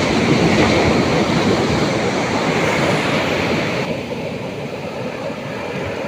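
Sea surf washing in on a beach: a loud rush of breaking waves that swells at the start, with the hiss dropping away sharply about four seconds in.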